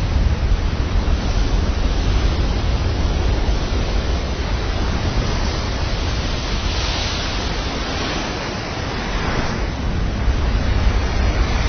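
Big-wave surf and wind noise: a steady, deep rush with no rhythm or tone.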